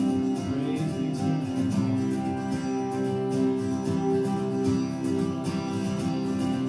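Worship music: an acoustic guitar strumming chords over held, sustained tones, at an even pace.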